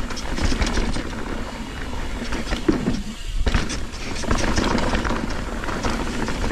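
Mountain bike riding over a loose, rough trail section: tyres rolling over dirt and rock while the chain and frame rattle with many small knocks, over a low wind rumble on the microphone. It goes briefly quieter about three seconds in.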